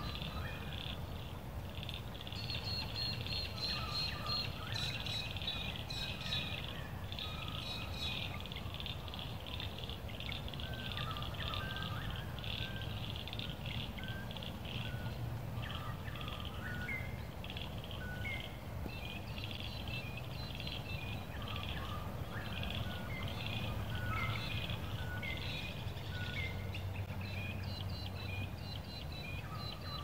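Outdoor ambience of many birds chirping together: a dense, continuous high twittering with scattered lower calls, over a steady low background noise.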